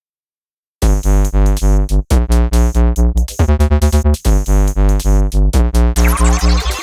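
Electronic music with synthesizer and a heavy pulsing bass beat, starting after a short silence, with a rising sweep near the end.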